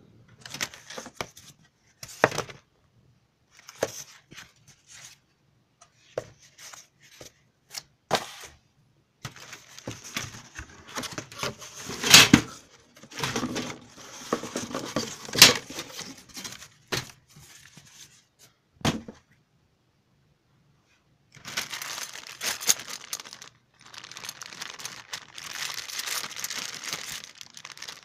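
Cardboard packing and plastic wrap being pulled and torn off metal shelving parts: irregular tearing and crinkling with sharp knocks and clicks. Over the last few seconds, a steadier crinkling of a plastic bag of hardware parts.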